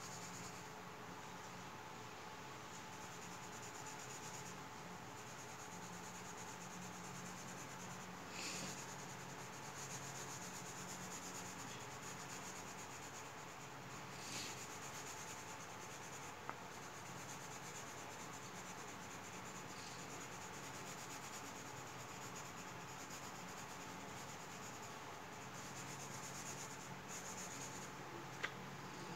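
Coloured pencil shading on paper: a faint, continuous scratching, louder for a moment twice, about 8 and 14 seconds in. A steady low hum runs underneath.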